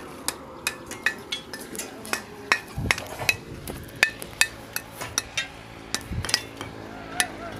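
Mason's hammer striking and chipping a clay brick to trim it, a run of sharp clacks about two to three a second, with two duller thuds partway through.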